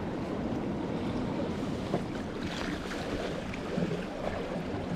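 Steady wash of small sea waves lapping around shoreline rocks, with some wind noise on the microphone.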